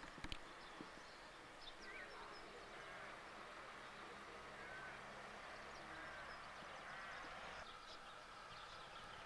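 Faint birds chirping: short arched chirps about once a second over a low hiss, with a sharp click just after the start.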